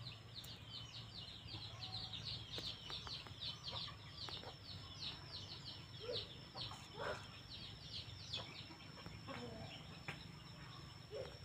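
Birds calling: a fast run of high, falling chirps that thins out about halfway through, with a few separate lower clucks, over a steady high whine.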